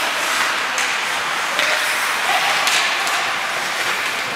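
Ice hockey play in an indoor rink: skates scraping on the ice with a few sharp clacks of sticks and puck, about a second apart.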